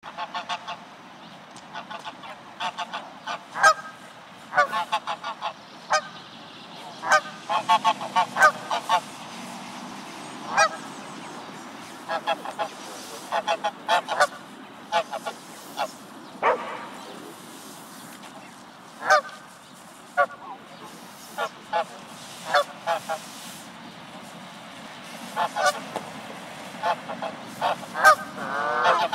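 Geese honking over and over, in short single calls and quick runs of several honks, over a steady low background noise, with a longer wavering call near the end.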